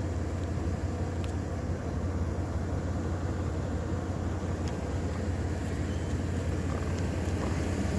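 A parked car idling, a steady low rumble heard from inside the cabin.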